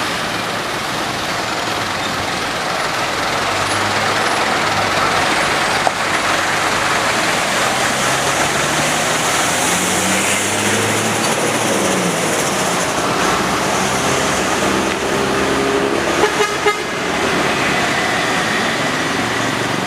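Road traffic: a truck engine running, its pitch rising and falling with speed, over steady road noise, with vehicle horns tooting.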